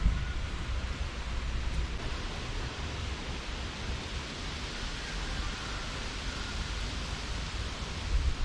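Steady rushing outdoor noise with an unsteady low rumble underneath, like wind on the microphone.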